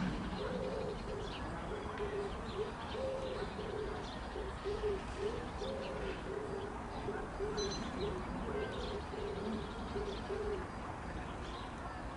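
A dove cooing: a long run of low notes that stops about ten and a half seconds in, with faint high small-bird chirps now and then.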